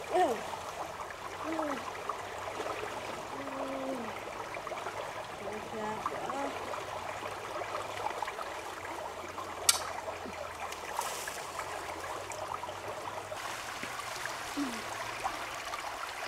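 Shallow rocky stream running steadily, with a few short gliding calls and a single sharp click about ten seconds in.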